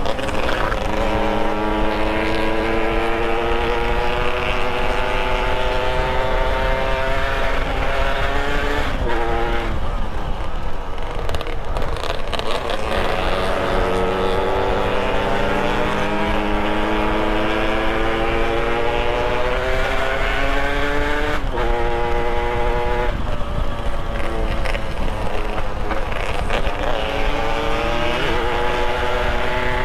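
Small motorcycle engine under way, its revs climbing in long pulls and dropping back sharply about 9, 21 and 23 seconds in as the throttle is shut or a gear is changed. Steady wind rumble on the microphone runs throughout.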